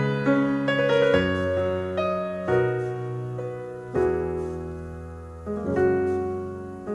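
Background music: solo piano playing slow, held chords, with a new chord struck every second or so, in an instrumental passage of a ballad.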